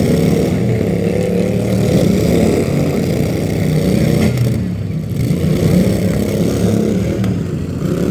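A loud engine running steadily, dipping briefly about two thirds of the way through.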